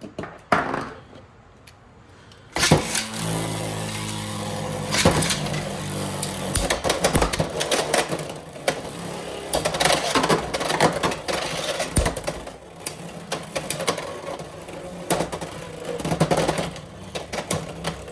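Beyblade X tops launched into a stadium with a sharp rip about two and a half seconds in. They spin with a steady whir, clattering and knocking against each other and the stadium walls.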